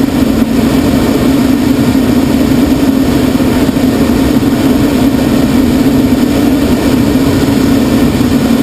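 Steady, loud in-flight drone inside a glider's cockpit, unchanging throughout.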